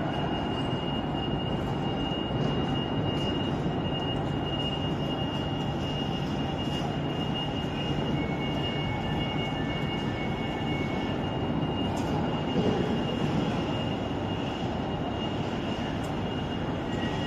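A train running: a steady rumble with a thin high whine over it, and a second, lower whine for a few seconds about halfway through.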